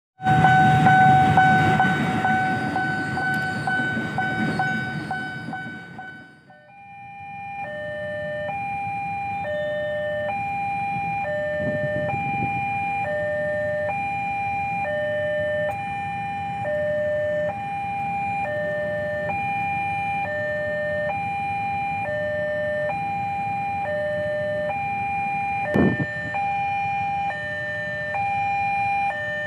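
Railway level-crossing warning alarm: an electronic two-tone signal switching back and forth about once a second, sounding while the crossing barrier is closed for an approaching train. It starts about seven seconds in, after a loud steady tone over rumbling noise that fades out. There is a single sharp knock near the end.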